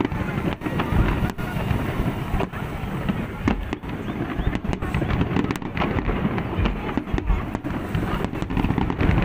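Fireworks display: a continuous run of shell bursts and crackle, the energy heavy and low, with many overlapping bangs.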